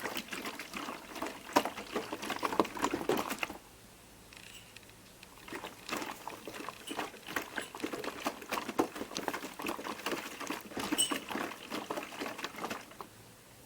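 DDR Piko Professional WS5522 washing machine's drum tumbling wet laundry in rinse water during the second rinse, splashing and sloshing. It runs for about three and a half seconds, pauses for about two seconds, then tumbles again for about seven seconds before stopping near the end.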